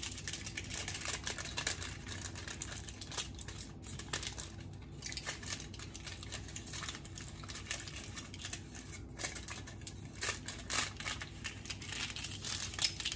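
Aluminium foil crinkling as it is folded up by hand into walls around the edges of a metal sheet pan: an irregular run of small crackles, with a few sharper ones near the end.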